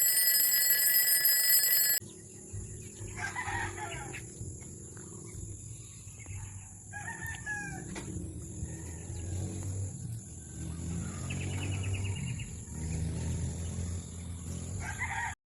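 A loud, steady high electronic tone for about the first two seconds, cutting off suddenly. Then chickens: a rooster crows twice, with a fast chattering call later on and a faint steady high whine underneath.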